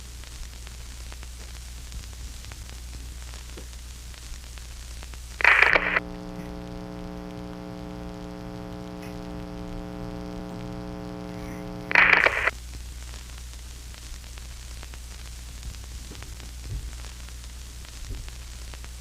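Steady electronic static hiss over a low mains-like hum. About five and a half seconds in, a loud burst of static cuts in, followed by a steady held chord of tones for about six seconds. A second loud burst of static ends it, and the hiss and hum return.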